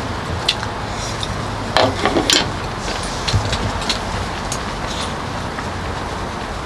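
Strong wind rumbling steadily, with a short clatter of small knocks and clinks about two seconds in and a few scattered ticks.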